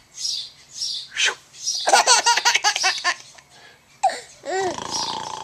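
High-pitched laughter in bouts: a few short breathy gasps, then a fast, stuttering run of laughing about two seconds in, and a couple of gliding laugh sounds near the end.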